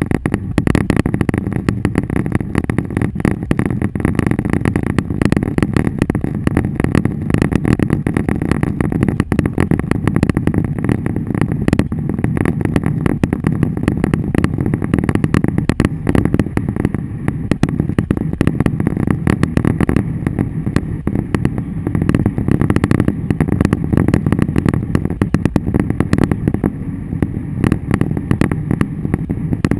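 Inside a moving car in a hailstorm: a dense, constant patter of hail and rain striking the roof and windshield over the low rumble of the engine and tyres.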